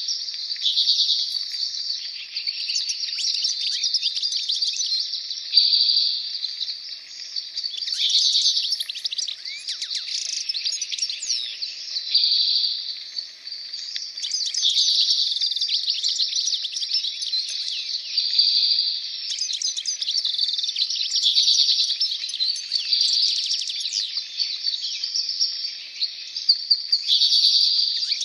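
A dense chorus of many birds singing at once: overlapping rapid chirps, twitters and trills that carry on without a break.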